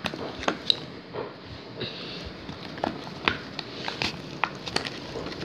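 Slime being stirred with activator, giving irregular sticky clicks and squelches.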